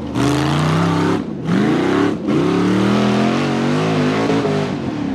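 Off-road rock buggy's engine revving hard under load on a steep dirt hill climb. The revs rise and fall in repeated surges, and the throttle drops off briefly about a second in and again about two seconds in.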